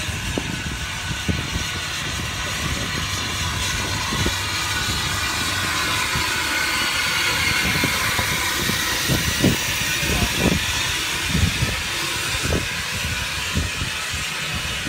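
Andrew Barclay saddle-tank steam locomotive No. 2261, built 1949, moving slowly past: a steady steam hiss with irregular low knocks from the running gear, louder around the middle as it passes close.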